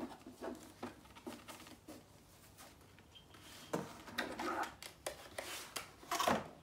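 A ribbon being untied and slid off a cardboard presentation box, with small clicks and rubbing, then rustling as the hands work the box. Near the end the box's magnetic-flap lid is pulled open with a louder, sharp scrape.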